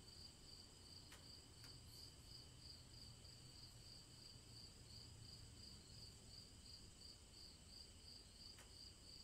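Faint night crickets chirping in steady, evenly pulsing high trills.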